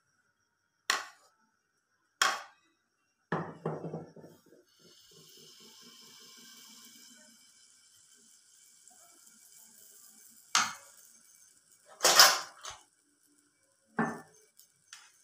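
Several sharp clinks and knocks of a spoon against a bowl and a nonstick frying pan, the loudest about twelve seconds in. A faint hiss in the middle is batter sizzling as it goes into the hot oil.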